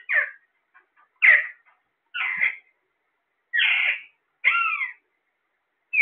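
Alexandrine parakeets calling: a string of five or six short, harsh calls about a second apart, some bending in pitch.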